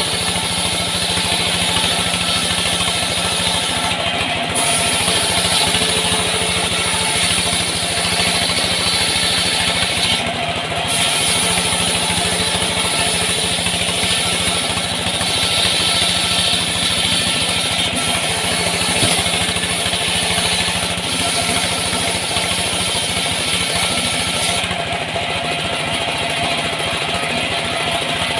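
An engine running steadily at constant speed under a continuous hiss, with a high hissing layer that drops out briefly a few times and fades near the end.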